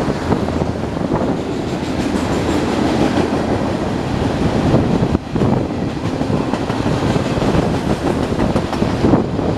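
Union Pacific mixed freight train's cars rolling past, wheels on the rails making a loud, steady rattling noise with a brief dip about five seconds in.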